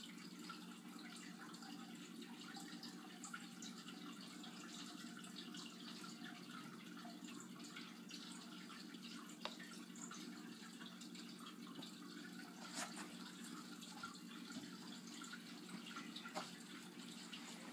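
Faint steady room hum and hiss, with a few light clicks.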